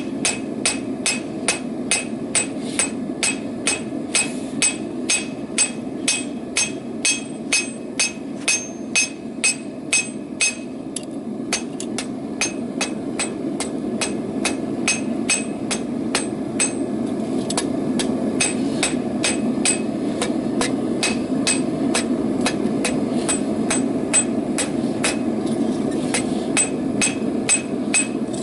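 Blacksmith's hammer striking hot rebar on an anvil in a steady rhythm of about two and a half blows a second, each blow ringing. The blows get lighter about ten seconds in. A steady low rushing noise runs underneath.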